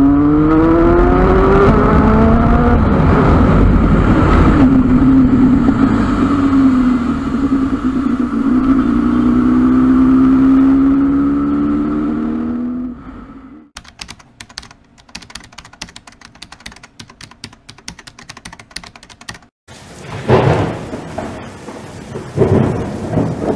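Motorcycle engine under way, its pitch climbing as the bike accelerates, then holding nearly steady with a slow rise. About fourteen seconds in it cuts off and gives way to rapid crackling, followed near the end by a few louder hits.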